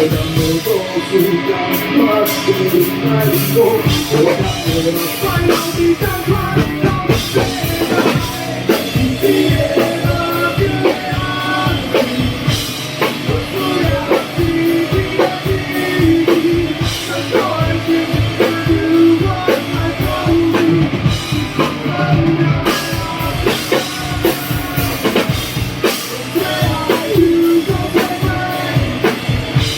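Rock band playing a song with a singer, a drum kit keeping a steady beat and guitar.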